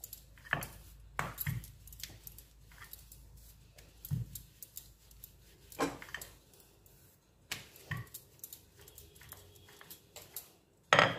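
Wooden rolling pin rolling out a round of semolina dough on a granite countertop: scattered, irregular light knocks and taps of the pin on the stone, with a sharper click near the end.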